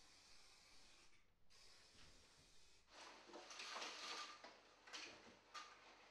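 Faint hissing in long stretches with short gaps between them, then a louder rustle of clothing and movement with two light knocks about five seconds in, as a person climbs up onto a windowsill.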